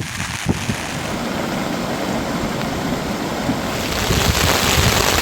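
Heavy rain falling, a steady hiss that grows louder about four seconds in.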